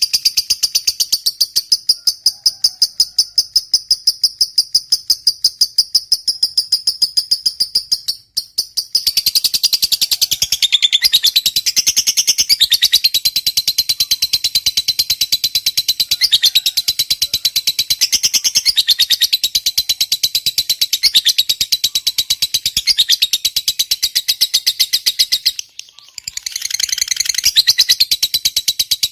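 Lovebird's long chattering song ("ngekek panjang"): a rapid, continuous run of shrill, high chirps. It breaks off briefly about eight seconds in and again near the end.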